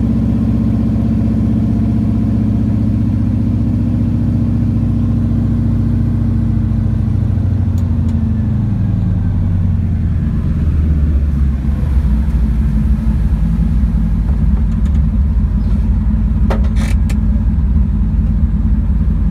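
Floatplane's piston engine and propeller running on the water, the drone dropping in pitch about halfway through as the power comes back, then holding steady at a lower pitch. A few sharp clicks near the end.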